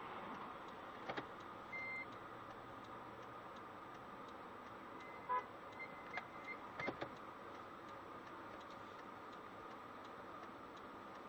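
Faint, steady background noise inside a stopped car, heard through a dashcam microphone, with a few soft clicks and a couple of short high beeps.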